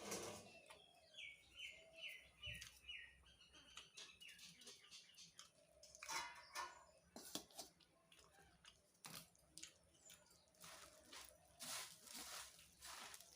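Faint clicks and crunches of someone eating puffed rice with ghugni, and a small bird giving a quick run of about six high, falling chirps between about one and three seconds in.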